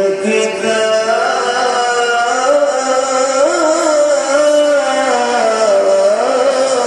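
A male Quran reciter holding one long, ornamented melodic note in the mujawwad style. The pitch slides and wavers without a break.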